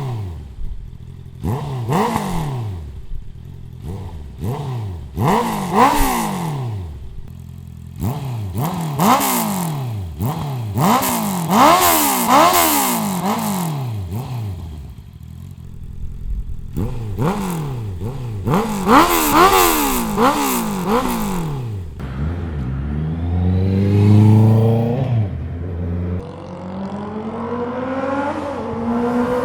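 Honda CB650R's 649cc inline-four, fitted with an Akrapovic Racing Line full-system exhaust, revved in repeated quick throttle blips, its pitch shooting up and falling back each time, with short lulls at idle. Near the end the pitch climbs more slowly and for longer.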